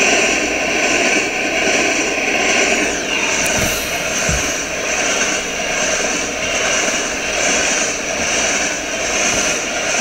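Freight train of covered grain hopper cars passing close by: a steady rush and rumble of steel wheels on the rails, swelling and easing slightly as the cars go by.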